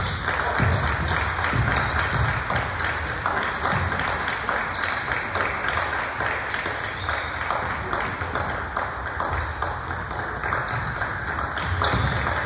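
Basketball game on a gym floor: sneakers squeaking in short, frequent chirps over a steady hubbub of players and spectators, with a few ball bounces in the first couple of seconds.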